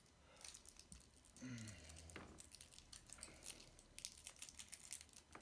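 Faint crinkling and small clicks of plastic packaging being handled and picked open by hand, irregular and soft throughout.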